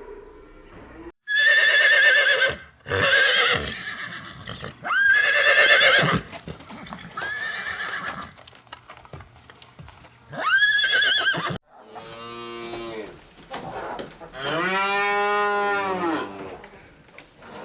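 A horse-type animal whinnying: a run of loud, high-pitched calls, each a second or so long, then two lower, longer calls in the last few seconds.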